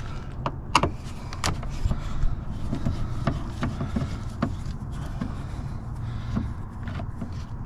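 Scattered sharp clicks and light knocks of a screw being worked out of a truck's plastic door trim, the two loudest about a second in, over a steady low hum.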